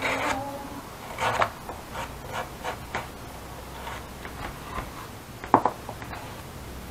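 Hand tool rubbing and scraping over leather on a saddle tree in short, separate strokes, with a sharp knock about five and a half seconds in.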